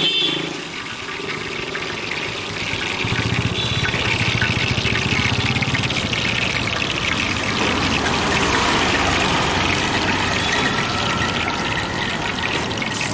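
Jalebi batter sizzling and crackling in hot oil in a large iron kadai, a steady hiss as fresh strands are piped in and fry. A low rumble joins about three seconds in.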